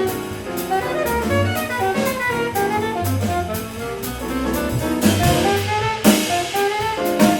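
Jazz quartet of saxophone, piano, double bass and drum kit playing, with a quick stream of short notes over a walking bass line and cymbal strokes.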